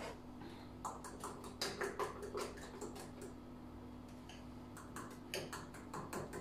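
A utensil clicking and tapping against the side of a mixing bowl as lumpy batter is beaten by hand, a few quick clicks a second. The clicks pause for a second or so in the middle, then start again.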